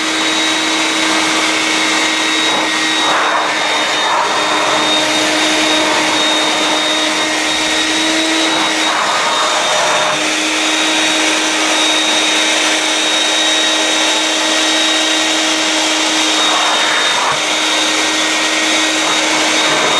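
Vax 221 wet/dry canister vacuum's two-stage motor running steadily in wet mode, sucking water back up out of a carpet through the clear floor head. Its steady hum wavers briefly a few times.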